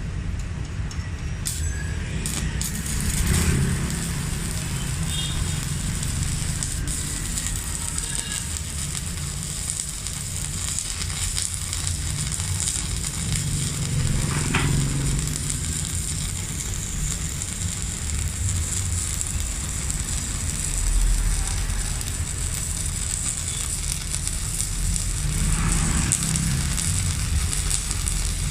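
Stick-welding arc from a Megatec 120EF mini inverter welder, crackling and sizzling steadily as a 3.2 mm electrode burns down in a continuous run.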